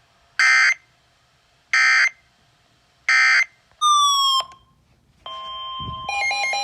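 Three short Emergency Alert System end-of-message data bursts, the screechy SAME digital tones. Each lasts about a third of a second, and they come about a second and a half apart. A brief tone gliding down in pitch follows. From about five seconds in, a steady electronic alert tone starts, and a tone jumping back and forth between pitches joins it: the attention signal that opens the next alert.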